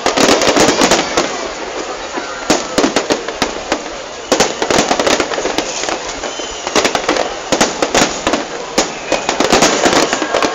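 Aerial fireworks bursting: dense clusters of rapid crackling pops, a new volley every second or two.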